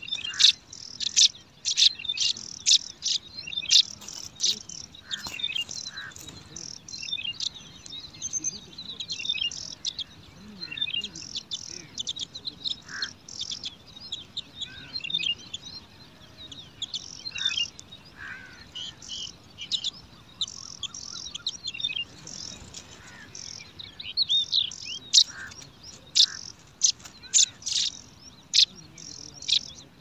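Brown prinia nestlings begging for food: a rapid stream of short, high-pitched chirps, busiest near the start and again near the end.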